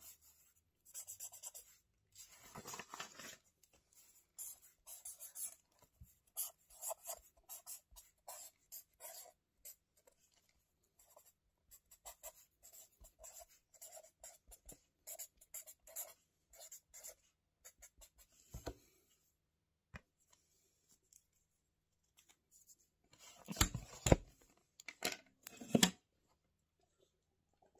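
Pen scratching across lined paper in a spiral-bound notebook, in many short strokes with pauses. About 23 seconds in come a few louder thumps and rustles as the notebook is shut and its textured cover handled.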